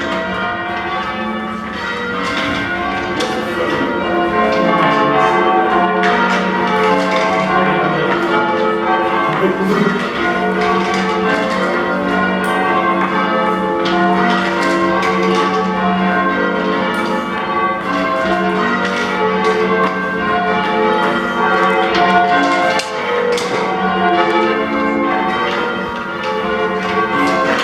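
A ring of five church bells rung in changes, the tenor about 13 cwt in F and the oldest bells cast in the early 1400s: the bells strike one after another in a steady, unbroken sequence, each stroke ringing on under the next.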